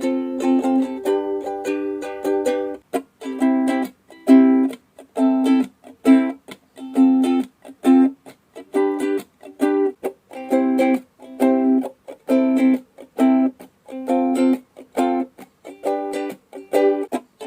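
Ukulele strumming a four-chord progression. The first chords are left to ring, then from about three seconds in come short, choppy strums that are cut off quickly, roughly two a second.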